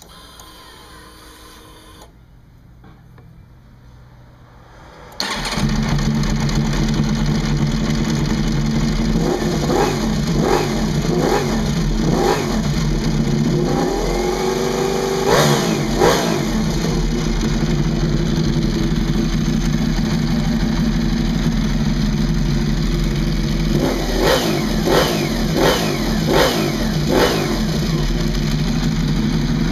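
Ducati Desmosedici RR's V4 engine starting about five seconds in and settling into a steady idle, with a series of quick throttle blips, one longer rev in the middle, and another run of about five short blips near the end.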